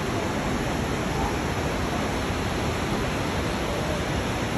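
Steady rushing water, the continuous roar of a waterfall heard close by.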